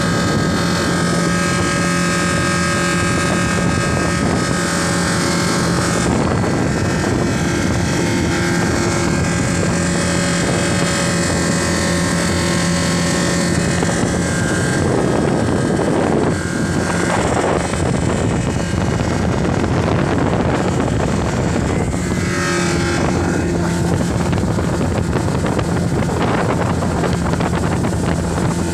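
1800cc jet ski engine running steadily under way, with wind on the microphone and rushing water. In the middle the even engine note gives way for several seconds to noisier wind and water rush, then comes back.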